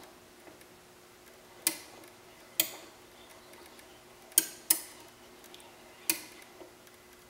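Five sharp clicks, irregularly spaced, two of them in quick succession, over a faint steady hum.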